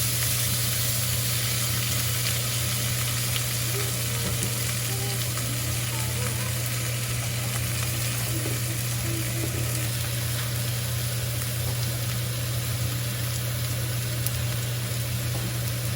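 Food frying in a pan, a steady sizzle throughout, with a steady low hum underneath.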